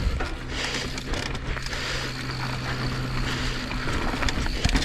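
Mountain bike descending a loose, dry dirt trail: tyres rolling and skidding over dirt, with rushing noise and a steady low hum that breaks off about three and a half seconds in.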